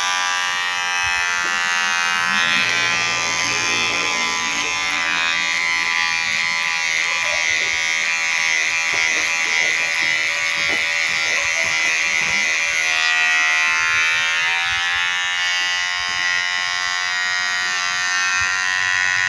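KIKI cordless hair clipper switched on and running with a steady buzz, test-run after its stainless blades were sharpened.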